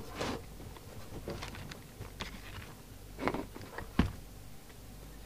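Handling noise as a CB radio is set down and shifted on a cloth-covered bench: light rustles and knocks, the loudest a soft thump about four seconds in.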